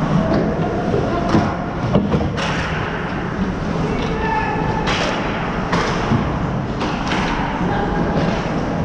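Ice hockey play at rink level: skate blades scraping the ice and a run of sharp knocks and thuds from sticks, puck and boards, with voices calling out.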